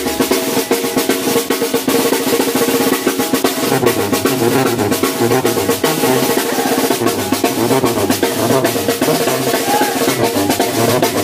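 Drums playing without a break: fast snare-drum rolls over bass-drum beats, with steady pitched music underneath.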